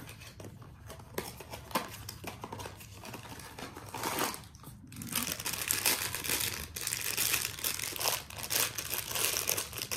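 A small cardboard blind box being handled and opened with light clicks and scrapes. From about five seconds in comes a steady crinkling as the black foil bag inside is pulled and torn open.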